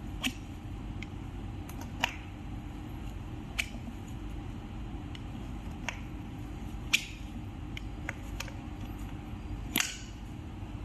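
A screwdriver levering a scooter tyre straight on its wheel hub, giving about eight sharp, irregular clicks and snaps from metal against the tyre and hub. A steady low hum runs underneath.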